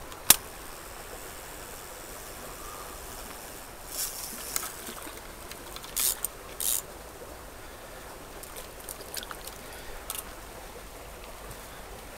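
Small shallow stream flowing steadily, with a sharp click just after the start and a few brief noises from wading through water and brush, the loudest two around the middle.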